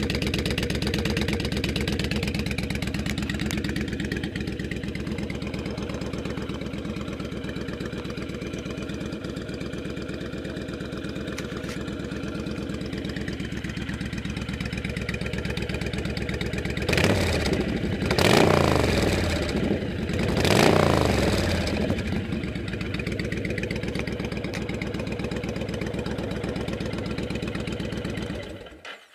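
2010 Honda Stateline's V-twin idling through Samson Warlord II Slasher pipes with the baffles in, a deep, throaty note. About two-thirds of the way through the throttle is blipped three times in quick succession, each rev rising and falling back to idle. The sound cuts off suddenly just before the end.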